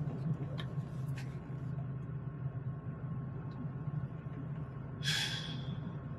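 A man's single short, sharp breath about five seconds in, over a steady low background hum.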